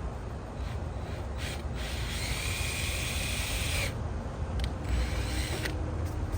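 Power drill boring a 1/8-inch pilot hole through plastic in short runs. A brief burst comes first, then a run of about two seconds with a steady whine that drops as the drill stops, then a few short bursts.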